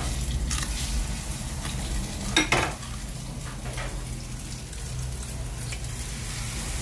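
Battered banana fritters frying in hot oil in a pan on a gas stove, a steady sizzle. A few clicks of kitchen utensils sound over it, the loudest about two and a half seconds in.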